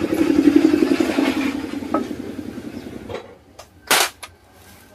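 Power impact wrench hammering a nut tight on the clutch side of a Hero Honda 100 cc engine. It rattles fast and evenly, fades and stops about three seconds in. A single sharp click follows about a second later.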